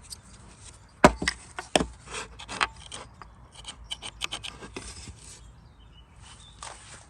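Metal trunk latch and lock parts being handled: a run of sharp clacks and clicks, the loudest about a second in, thinning to lighter clicks and a faint rub near the end.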